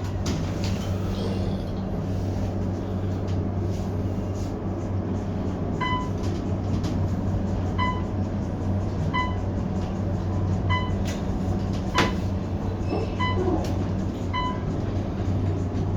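Hotel elevator car riding up: a steady low hum, with a short beep from about six seconds in that repeats every second or so, sounding as the car passes each floor. A single sharp click comes near the end.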